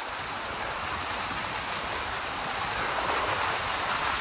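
Muddy water rushing and splashing off the front wheel of a Rolls-Royce Cullinan SUV as it drives slowly through a deep puddle. It is a steady rush that grows slowly louder.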